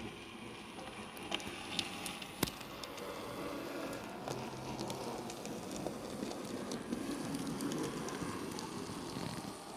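OO9 narrow-gauge model train running on the layout's track: a steady rattling rumble with a crackle, swelling a little in the second half, with a few sharp clicks about one to two and a half seconds in.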